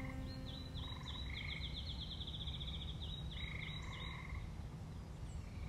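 Frogs calling in short, repeated trills, with a fast run of quick high chirps through the middle, over a low rumble.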